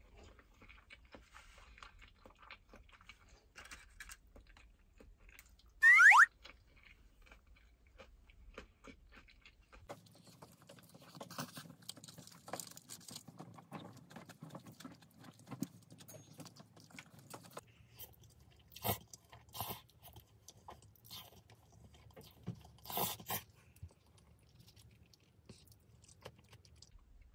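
A short descending whistle-like sound effect about six seconds in, the loudest thing here, over faint scattered clicks and small handling noises.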